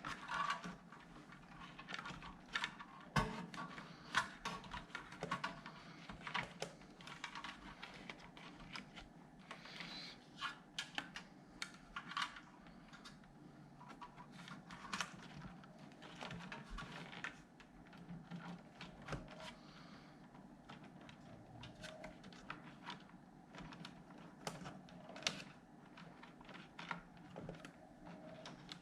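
Wiring being tucked and pressed into plastic clips inside an opened Commodore SX-64 case: irregular light clicks and taps from handling cables and parts.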